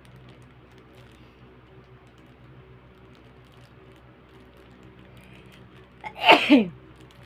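A single loud human sneeze about six seconds in, induced on purpose: a sharp burst with two quick peaks and a voiced tail that falls in pitch. Before it there is only quiet room tone with a faint steady hum.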